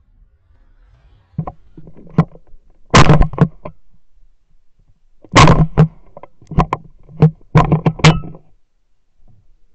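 Two loud reports from a Fabarm Axis over-and-under shotgun, fired at a flying thrush, about two and a half seconds apart. They are heard through the camera mounted on the barrel, amid a string of shorter knocks and thumps from the gun being handled.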